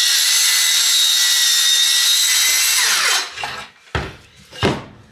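Cordless circular saw with a Diablo Steel Demon steel-cutting blade cutting through thin-wall square steel tubing: a loud, steady high whine that drops away as the saw spins down about three seconds in. Two sharp metal clinks follow, about four seconds in and again half a second later.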